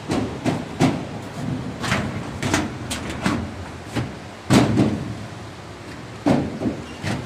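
Sheet-steel locker door and cabinet being handled and fitted, giving a run of metal knocks and clatters, with louder bangs about halfway through and again near the end.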